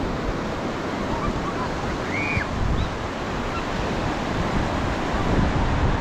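Surf breaking and washing onto the beach in a steady rush, with wind buffeting the microphone in low gusts. A short, faint high call sounds about two seconds in.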